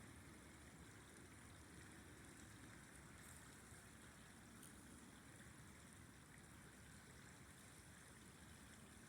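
Faint, steady rush of a flowing river.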